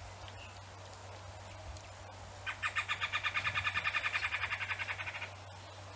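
A bird calling in one rapid rattling run of about ten notes a second, lasting nearly three seconds, over faint background noise.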